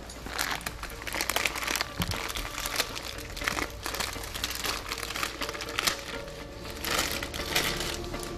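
Plastic film and foil wrapping crinkling in irregular crackles as gloved hands handle it, over background music.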